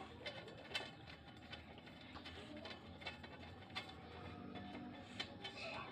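Faint, scattered light clicks and knocks, about one a second, from steel parts of a folding drying rack being handled and fitted together, with faint music in the background.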